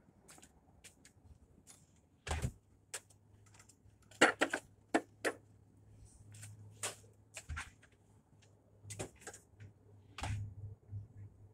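Footsteps and a run of clicks and knocks as an electric power shovel is carried over and set down on asphalt, with two heavier thumps, about two seconds in and again about seven and a half seconds in. A faint low hum runs underneath from the first thump nearly to the end.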